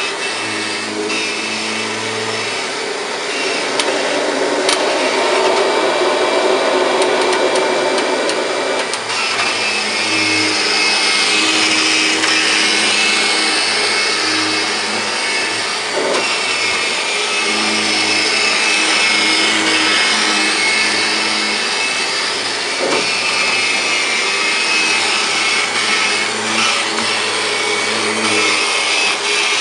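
1999 Kirby G5 upright vacuum cleaner running on carpet, a loud steady motor whine. It grows louder about three seconds in as it comes closer, and its tones shift as it is pushed back and forth over the pile.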